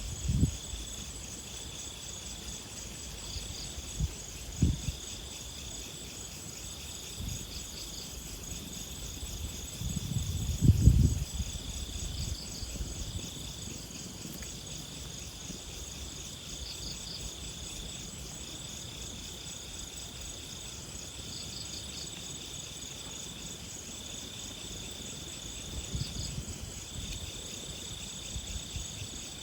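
Insects chirring steadily in a chorus: one sings in long trills with short breaks, another in a higher, faster pulse. A few low thuds come through, the loudest a cluster about ten to eleven seconds in.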